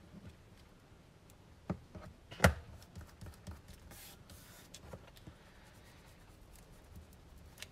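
Hands handling and smoothing black cardstock on a cutting mat, with light rubbing and scattered small ticks. There is a sharp knock about two and a half seconds in and a lighter one shortly before it.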